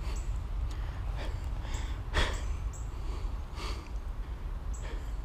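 A person breathing hard through the nose in several short puffs, the loudest about two seconds in, over a steady low rumble. Short high chirps come and go.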